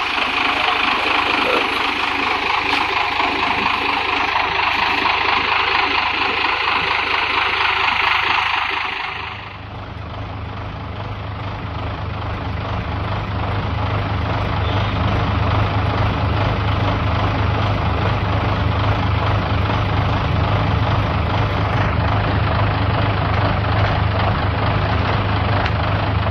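Vehicle engine idling while warming up. About nine seconds in, the sound changes abruptly: the hissy upper part drops away and a deeper, steady low hum takes over.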